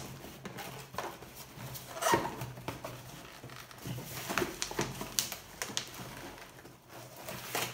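Handling noise from an RC car box: scattered clicks, taps and rustles as a radio transmitter held in its packaging by a zip tie is tugged at.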